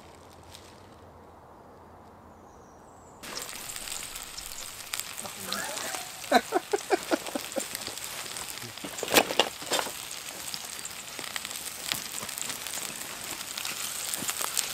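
Sausages, tomatoes and mushrooms frying in a cast-iron skillet over a campfire, starting about three seconds in after a quiet stretch, then a steady sizzle. A few louder short sharp sounds come through it in the middle.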